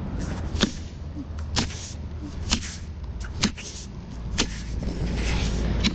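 Brush cutter engine running with a steady low rumble, and sharp cracks about once a second.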